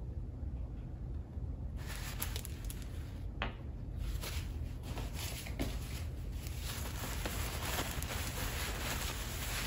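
Packing wrap rustling and crinkling by hand as a crystal is unwrapped. It starts about two seconds in and goes on as a dense run of crackles.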